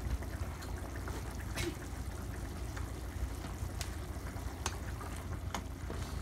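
Pot of vegetable stew simmering on a gas stove: scattered bubbling pops over a steady low rumble.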